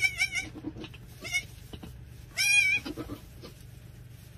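Newborn goat kid bleating in high-pitched cries, three times: a short one at the start, a faint one after about a second, and a louder, longer one about two and a half seconds in.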